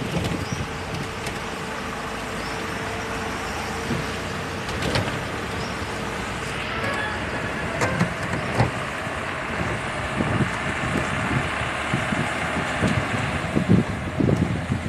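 Steady noise of a vehicle on the move: engine, tyre and wind rumble, with a few short knocks and bumps along the way.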